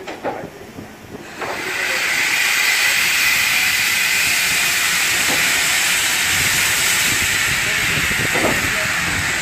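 Steam locomotive blowing steam from its open cylinder drain cocks as it moves slowly: a loud, steady hiss that starts about a second and a half in.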